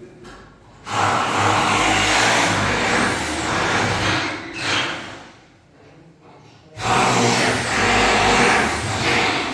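Electric sewing machine running in two bursts of about three seconds each. It starts suddenly about a second in, runs down near the middle, then starts again and runs to near the end.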